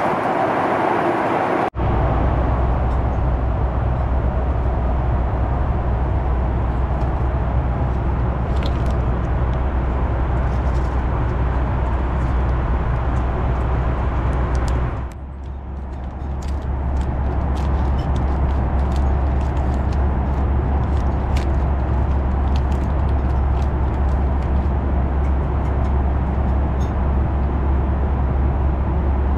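Steady in-flight cabin noise of a Boeing 737 MAX 8 in cruise: the rush of airflow and the drone of its CFM LEAP-1B engines, with a deep steady hum underneath. The noise dips briefly about halfway through, then builds back.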